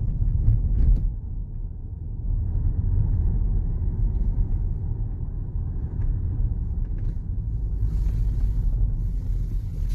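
Low, steady rumble of a car's engine and tyres on the road, heard from inside the cabin. A brief hiss comes in about eight seconds in and again near the end.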